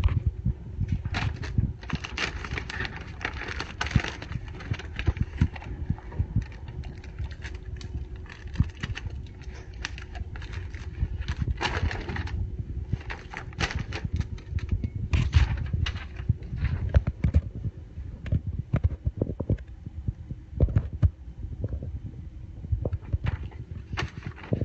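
Packing tape being peeled off and pressed onto a plastic poly mailer: crinkling plastic, the rip of tape strips pulled free, and hands rubbing and tapping the package on a shelf, in irregular rustles and clicks.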